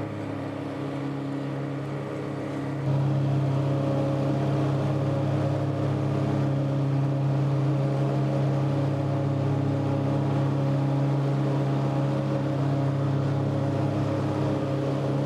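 Tractor engine running steadily at working speed while it pulls and drives a 12-foot Woods Turf Batwing rotary mower through thick, damp grass, working near the limit of its horsepower. The sound steps up louder about three seconds in.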